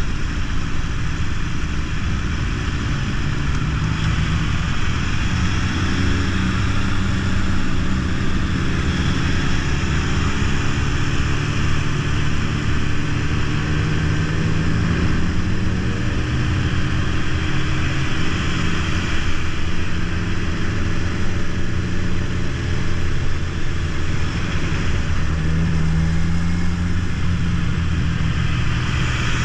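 Motorcycle engine running steadily while riding, the note shifting a little with speed, under a steady rush of wind and road noise from the moving bike, with other motorcycles in the column close by.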